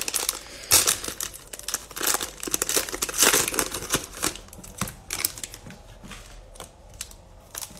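Plastic cello-pack wrapper of a pack of football trading cards being torn open and crinkled by hand: irregular crackling rustles, loudest about a second in and again about three seconds in, thinning out near the end.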